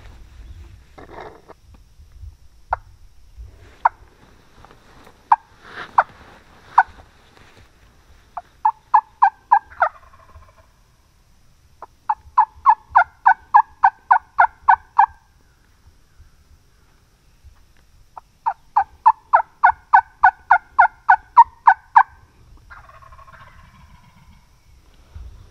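Hen-turkey yelps blown on a wingbone call, close by and loud. A few single yelps come first, then three runs of evenly spaced two-note yelps at about four or five a second, the longest lasting about three seconds.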